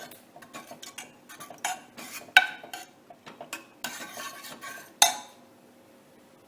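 A metal spoon stirring water into thick cooked dal in a pot, scraping and clinking irregularly against the pot's sides, with a sharper clink about two and a half seconds in and a last loud one about five seconds in.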